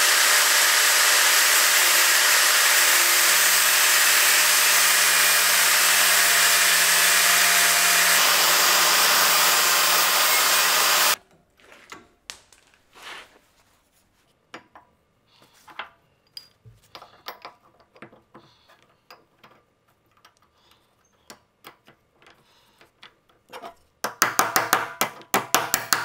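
Angle grinder cutting through the small steel winch hook where it joins the winch rope, running steadily and then shutting off abruptly about 11 seconds in. Faint scattered clicks follow, then near the end a loud, rapid run of clicks.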